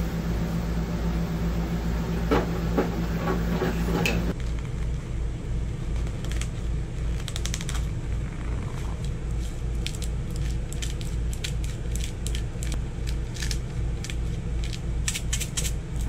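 Plastic packaging crinkling in short sharp clicks as a bag is pulled back from a tray of raw meat, over a steady low hum.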